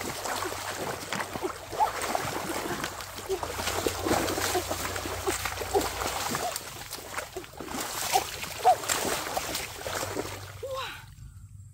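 Shallow muddy water splashing and sloshing as a person churns through it with arms and body, groping for a fish by hand. The splashing is dense and continual, then dies down near the end.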